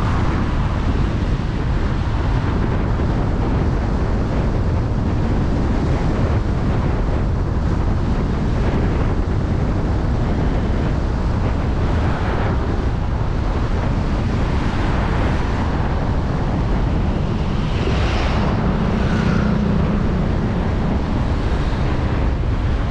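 Wind buffeting the microphone of a moving vehicle, over steady road and traffic rumble. About three-quarters of the way in, a low hum and brighter noise briefly swell.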